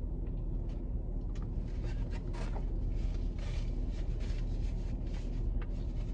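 A person chewing a mouthful of taco, with short wet mouth sounds and light paper rustles, over a steady low rumble inside a car.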